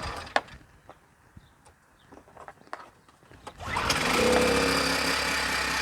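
A few handling clicks, then a Predator 1400 inverter generator's small gasoline engine starts about three and a half seconds in and runs steadily, on choke with eco mode off.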